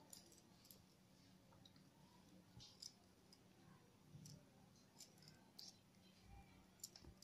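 Near silence, with faint scattered clicks from hands pressing batter-coated taro leaves onto a board lined with newspaper.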